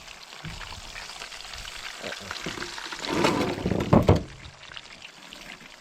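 Deer meat sizzling in a frying pan, with a louder burst of handling noise from about three seconds in that peaks near four seconds.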